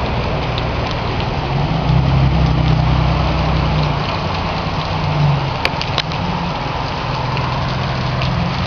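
Heavy rain falling steadily, with a car engine running low underneath that swells about two seconds in and again around five seconds. Two sharp clicks about six seconds in.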